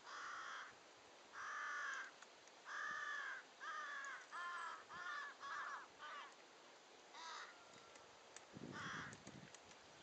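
Crow cawing in the background: a series of about ten harsh calls, the middle ones shorter and coming quicker.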